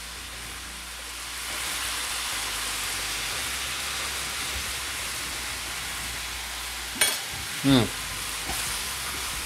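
Minced beef and vegetables sizzling steadily in a frying pan, the sizzle growing louder about a second and a half in. A sharp click about seven seconds in, then a brief hum of a voice.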